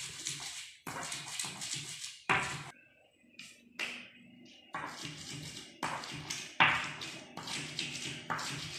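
Spice paste being ground with a pestle in a mortar (Indonesian cobek and ulekan): a run of rough scraping strokes, broken by a short pause about three seconds in before the grinding starts again.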